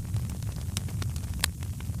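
Wood fire crackling: irregular sharp snaps and pops, a few louder ones, over a steady low rumble of burning.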